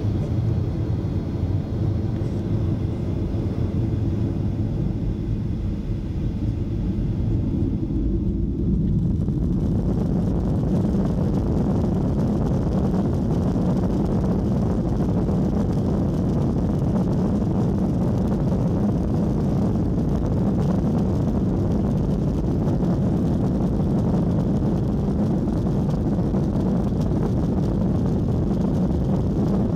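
Boeing 737-900ER's CFM56-7B turbofan engines heard from inside the cabin: a lower hum with faint steady tones, then about nine seconds in the noise swells as takeoff thrust is set, and the engines run steadily loud through the takeoff roll.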